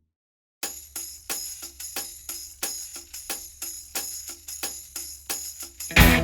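Background music: after a brief silence, a tambourine-like percussion beat of about three strikes a second over a low hum, with the full rock band coming back in near the end.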